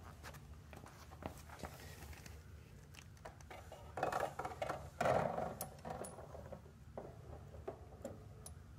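Hand work on a boat's brass drain tube: a steel threaded rod scraping as it is pushed through the tube, in two rough bursts about four and five seconds in. Light clicks and knocks of parts being handled come before and after.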